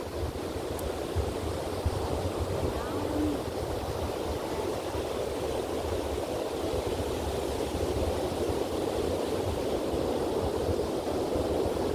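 Ocean surf washing steadily onto the beach, with wind gusting on the microphone.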